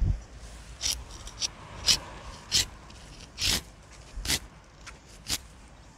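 A dethorning tool scraping the small thorns off a thick, partly woody bramble cane, in about eight short rasping strokes, one of them longer about halfway through.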